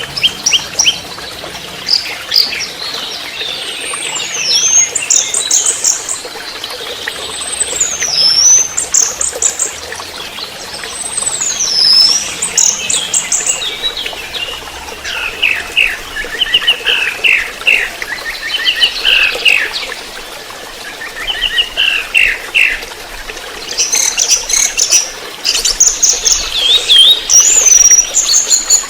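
Orange-headed thrush singing. It gives whistled notes that swoop down and back up, each followed by a quick run of notes, three times in the first half, then rapid chattering phrases lower in pitch and more high notes near the end. A faint steady hiss runs underneath.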